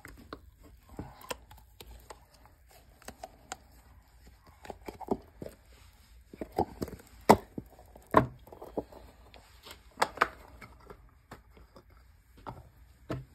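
Scattered clicks and knocks of hands working a cast resin piece out of its flexible mold and setting the pieces down on a table, with the sharpest knocks about seven, eight and ten seconds in.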